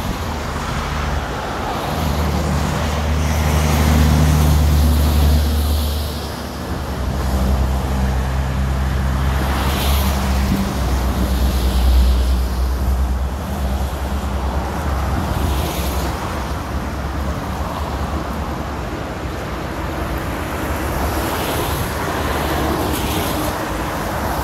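Kaaimans River in flood rushing through its estuary: a steady roar of water under a heavy low rumble that swells about two seconds in and again from about seven to thirteen seconds.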